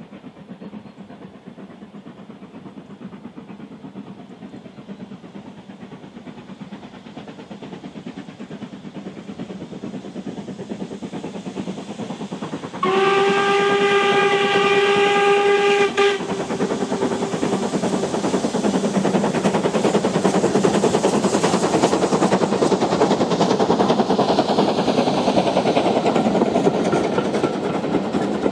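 4MT steam locomotive hauling a passenger train, its exhaust growing louder as it approaches. About halfway through, its steam whistle blows once, a single steady note for about three seconds. Then the engine passes working hard, with the coaches rumbling and clattering behind it.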